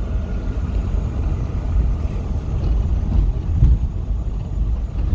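Low, steady vehicle rumble and road noise, with a brief thump about three and a half seconds in.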